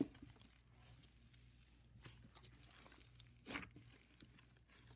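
Faint crackling and squishing of a stiff slime being kneaded and squeezed by hand, with one louder short crackle about three and a half seconds in.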